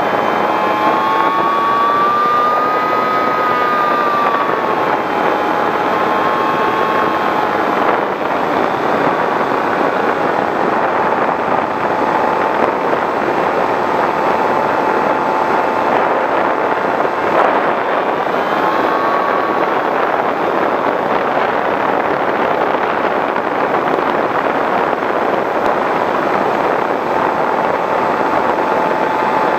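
Brushless electric motor and propeller of a Skywalker V6 FPV plane (910kv motor) heard from the onboard camera: a steady whine over loud rushing wind. The whine's pitch rises a little a few seconds in, settles lower, and lifts briefly again about two-thirds of the way through as the throttle changes.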